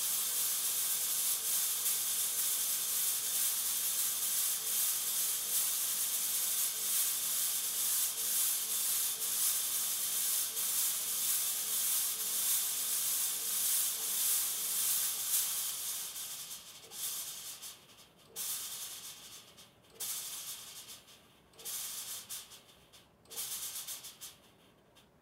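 Smoke being sprayed into the air to fill the shot: one long steady hiss for about sixteen seconds, then shorter hissing bursts about every second and a half.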